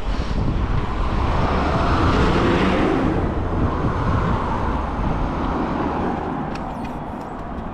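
Road traffic noise: a vehicle passes close by, rising about two seconds in and fading away, over a steady low wind rumble on the microphone.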